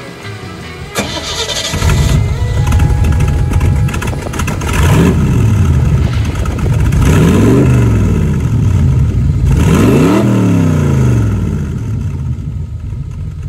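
The Jeep's 350-cubic-inch V8 with a MotherThumper cam and Holley Sniper fuel injection starts up about two seconds in. It is then revved several times, its pitch rising and falling back, and settles to idle near the end.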